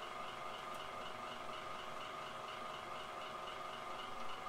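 A steady machine hum with fixed tones and a faint high whine pulsing about four times a second.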